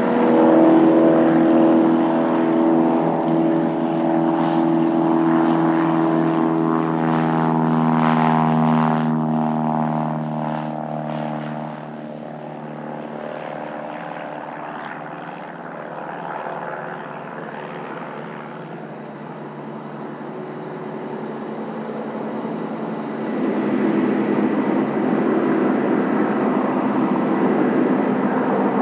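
Cessna 172S Skyhawk SP's four-cylinder Lycoming engine and propeller droning loudly, its pitch falling slightly as it fades over about twelve seconds. Near the end another Cessna 172S's engine and propeller come in suddenly, louder and with more hiss.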